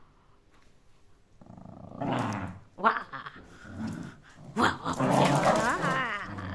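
Dog growling over a teddy bear it is guarding, in several rough bursts that grow longer and louder towards the end: possessive toy-guarding.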